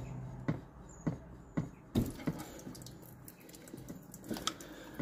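A screwdriver working on screws at the heater box on a steel firewall, making a string of irregular light metal clicks and taps, several in the first half and two more near the end.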